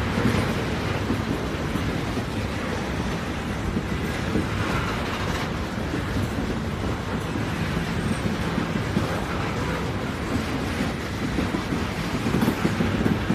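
Steady rumble and track noise of a moving train, an even noise with no whistle.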